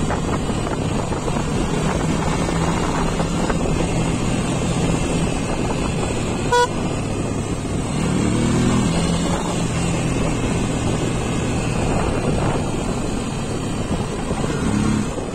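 Motorcycle engine running under way on a winding road, with wind noise over the microphone. The engine pitch rises and falls around eight seconds in and again near the end. A very short horn beep sounds about six and a half seconds in.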